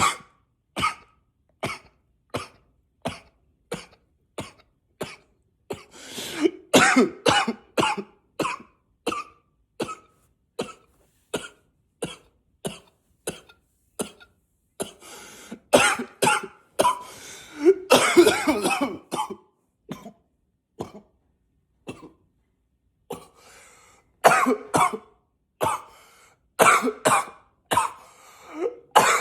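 A man coughing over and over: single short coughs about one every three quarters of a second, broken by three longer fits of rapid coughing.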